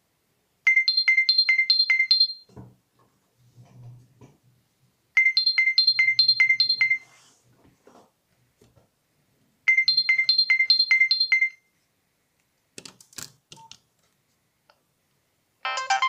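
Nokia 2650 mobile phone playing one of its built-in ringtones through its small speaker: a phrase of about six quick, high beeps, played three times with pauses of about three seconds between. A few clicks follow, and a different ringtone tune starts right at the end.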